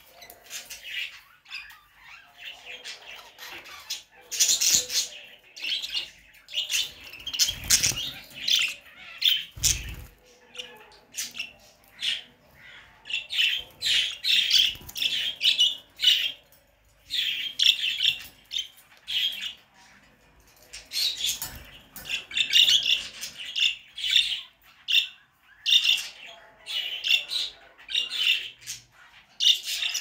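Several budgerigars chirping, warbling and squawking in quick, overlapping bursts. Two dull thumps come about eight and ten seconds in.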